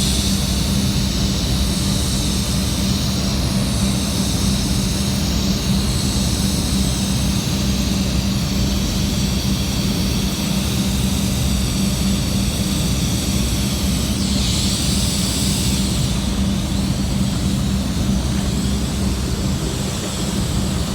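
TIG welding setup on carbon-steel pipe running: a steady low hum with a high hiss over it, the hiss shifting briefly just after the middle.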